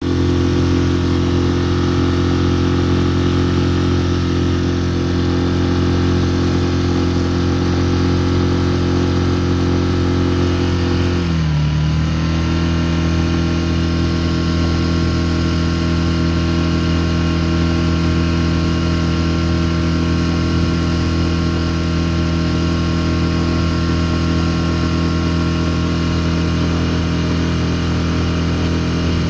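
Small outboard motor running steadily as it pushes the boat along. About eleven seconds in its pitch dips briefly, then it settles at a slightly different steady speed.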